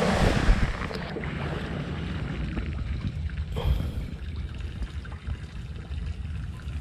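Wind buffeting the microphone: an uneven low rumble with a faint hiss of water or rain behind it.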